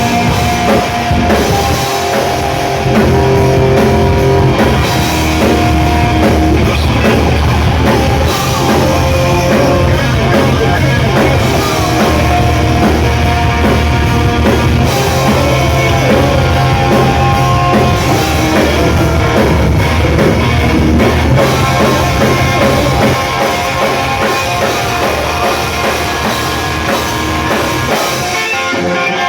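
Live rock band playing loud with distorted electric guitar, bass and drum kit. Near the end the bass and drums drop out, leaving the guitar.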